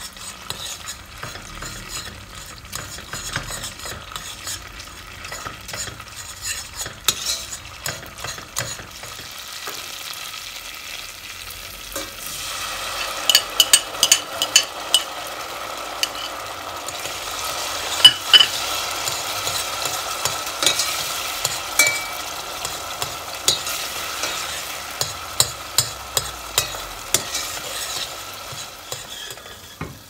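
A metal spoon stirring and scraping in a stainless steel pot, with many sharp clicks against the pot, over oil and tomato paste frying. About twelve seconds in, a louder, steady sizzle sets in as grated tomato goes into the hot oil.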